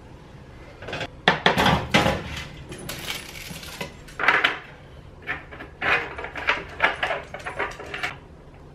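Irregular clattering and crinkling of a foil-wrapped pot and a metal baking sheet being handled and pressed on a stovetop, in short bursts with brief pauses.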